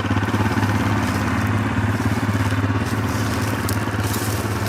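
Four-wheeler (ATV) engine running steadily at a low, even speed.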